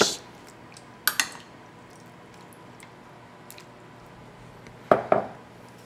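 A metal spoon scooping wet cubes of pickled radish into a small ceramic bowl: soft wet squishing with sharp clinks of spoon and dish, a pair about a second in and a louder pair near the end.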